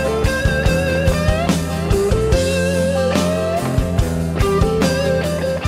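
Background rock music with an electric guitar playing bending lead notes over a steady beat.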